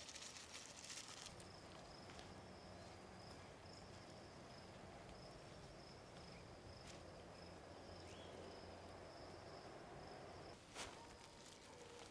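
Quiet garden ambience with a faint, steady high-pitched insect trill that starts about a second in and stops near the end. Light rustling at the start and a few soft clicks, with a knock near the end.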